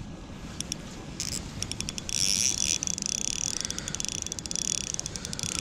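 Shimano Miravel 1000 spinning reel clicking and whirring in runs of rapid fine ticks while a hooked trout is played on light 2 lb line.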